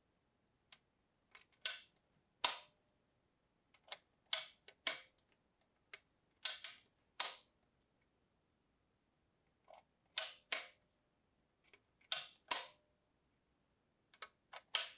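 The switch on a Star Headlight & Lantern Co. brakeman's hand signal lantern being clicked over and over as its bulbs are turned on and off. Sharp metallic clicks come mostly in pairs about half a second apart, some with a brief ring, and there is a pause of about two seconds after the middle.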